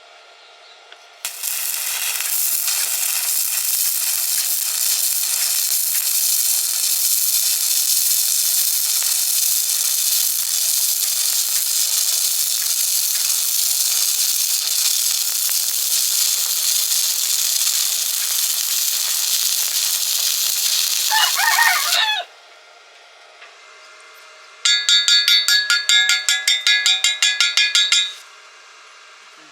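Stick welding arc burning steadily for about twenty seconds, a dense crackling hiss, cut off suddenly when the arc is broken. A few seconds later, a burst of quick rhythmic scraping strokes, about four a second.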